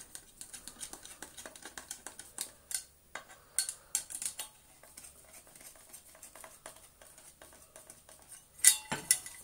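Light, irregular clicks and taps of small plastic vacuum-cleaner parts being handled and fitted together, with a louder clatter near the end.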